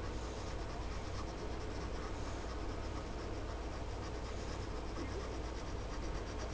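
Tip of a black Sharpie marker scratching on paper in quick repeated strokes as it fills in a drawing, over a steady low hum.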